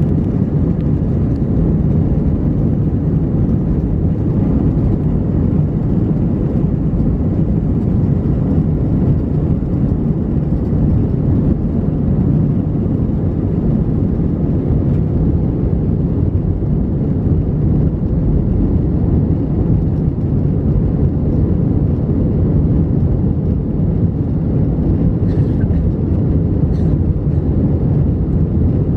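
Jet airliner at takeoff power, heard from inside the cabin: a steady, loud, deep rushing noise of engines and airflow through the takeoff roll, lift-off and initial climb.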